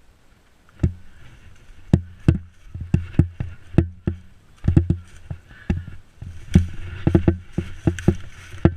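An irregular run of sharp clicks and thumps, some in quick bunches, over a rustling hiss.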